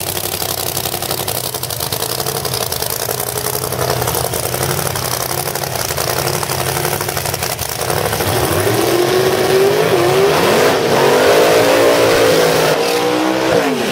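Two pro mod drag cars' V8 engines run with a steady low drone as they roll up. From about eight seconds in they are revved high, the pitch rising and falling and wavering, through side-by-side burnouts.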